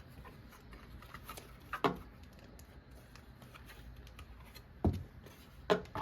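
Packaging and parts being handled while a solar motion light is unboxed: a few short knocks and rustles, one about two seconds in and two near the end.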